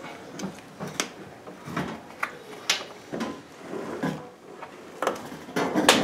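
Samsung dishwasher being tipped over onto its back: a string of separate plastic knocks and clunks from its base and tub as it is handled, with the loudest clunk near the end.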